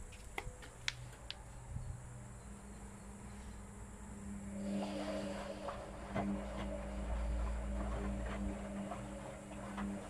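Whirlpool FL 5065 front-loading washing machine on its softener rinse. A few clicks come in the first second or so. About halfway through, the drum motor starts with a steady hum, and the laundry tumbles and sloshes in the rinse water.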